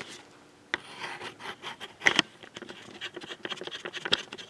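Irregular handling noises of a camera being moved around a workbench: rubbing and scraping with scattered clicks, a sharper click about three-quarters of a second in and another about two seconds in.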